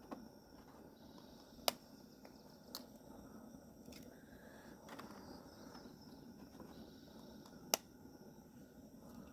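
Quiet background with a few sharp clicks or taps: two close together a couple of seconds in and a louder one near the end.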